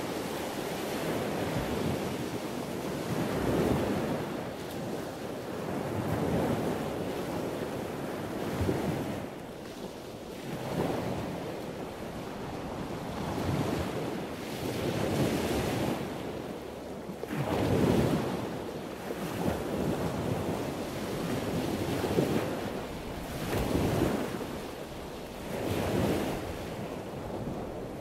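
Wind rushing over the microphone of a camera moving along the road, a noisy rush that swells and eases every couple of seconds.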